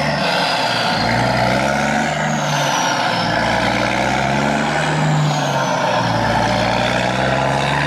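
A heavy truck engine running, its pitch shifting up and down, with a high whine that glides down in pitch a couple of times. The toy truck has no motor, so this is a truck-engine sound effect laid over the footage.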